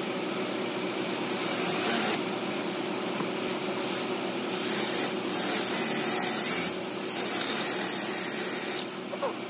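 Milwaukee M18 cordless drill boring a hole through a cast aluminum pump bracket. It runs in spells with a high whine as the bit cuts: briefly about a second in, then two longer runs in the second half. It stops shortly before the end.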